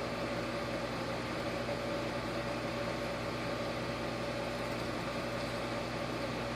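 AirTap ATI66 hybrid heat-pump water heater running, its compressor and fan giving a steady hum with a constant mid-pitched tone.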